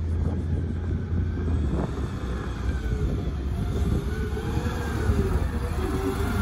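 McNeilus ZR automated side-loader garbage truck with a natural-gas engine driving up and slowing as it pulls alongside the carts: a steady engine rumble with a wavering whine over it.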